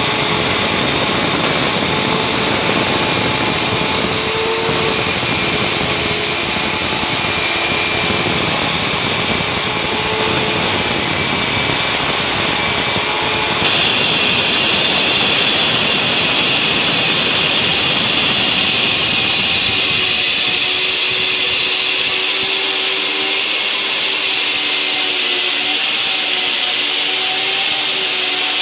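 Electric core drill with a 4-inch concrete hole-saw bit running steadily under load, the motor's whine mixed with the bit grinding through the concrete. The sound's character shifts abruptly about halfway through, then carries on just as loud.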